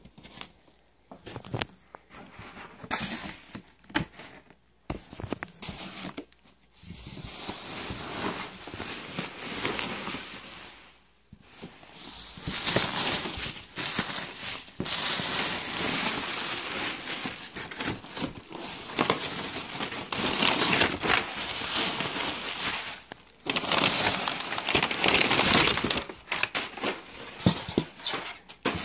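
Bubble wrap and plastic packing crinkling and rustling as hands pull it out of a cardboard box, in uneven handfuls with brief pauses. It grows louder and more continuous about halfway through.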